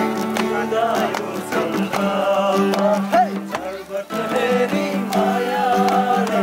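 Music: a song with a singing voice over guitar and percussion strikes.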